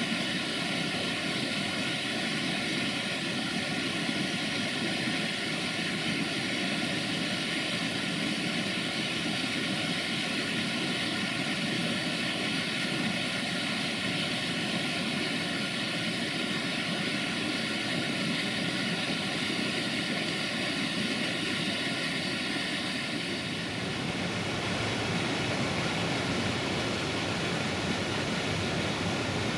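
Waterfall: a steady rush of falling water, its tone shifting abruptly a little over three-quarters of the way through.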